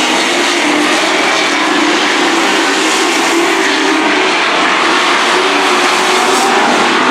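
Dirt-track race trucks' engines running hard as they race side by side down the straightaway: a loud, steady engine drone whose pitch wavers slightly.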